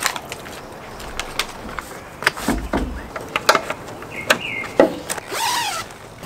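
Scattered sharp clicks and knocks as tent poles are seated in their corner fittings and the inner tent is clipped on, pole ends tapping a wooden deck, with a brief swish of tent fabric near the end.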